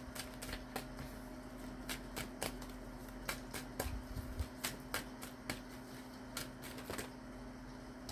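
A deck of tarot cards being shuffled: a long run of soft, irregular card clicks and snaps, over a faint steady hum.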